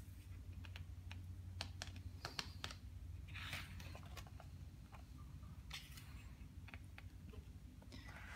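Pages of a large glossy photo book being handled and turned: a soft paper swish about three and a half seconds in and another near six seconds, with scattered light ticks and taps of fingers on paper, over a low steady hum.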